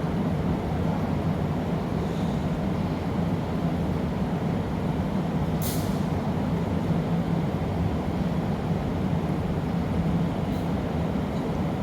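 Steady low roar of a glassblowing workshop's gas-fired furnaces and glory hole, with a short hiss about six seconds in.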